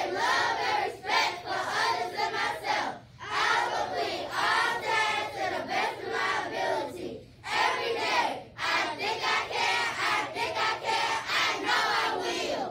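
A class of young children reciting a creed together in unison, their voices chanting line by line with short pauses between phrases.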